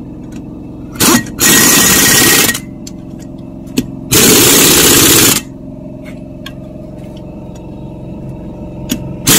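Impact wrench hammering the bolts of an off-road wheel's beadlock ring, in bursts: a short one about a second in, a longer one straight after, another a little past four seconds, and a brief one at the end. A steady low hum runs underneath between the bursts.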